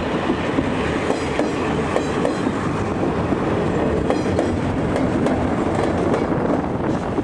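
Passenger train crossing a steel girder bridge overhead, its wheels clattering over the rails with a steady rumble; a diesel locomotive at the rear passes midway, and the clatter eases slightly near the end as the train clears the bridge.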